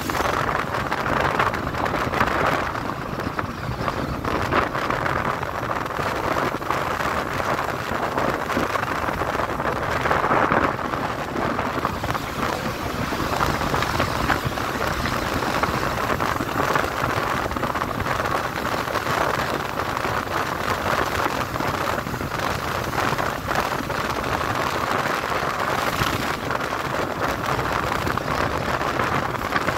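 Steady rush of wind over the microphone, mixed with the engine and road noise of a motorcycle riding along a paved road.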